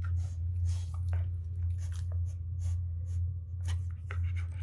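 A Rottweiler panting with its mouth open, with irregular wet mouth clicks and smacks, over a steady low hum.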